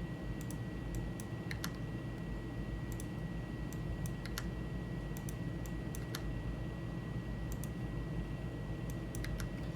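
Irregular clicking of a computer mouse and keyboard during 3D modelling work, a couple of dozen separate clicks, some in quick pairs, over a steady low background hum and a faint thin high whine.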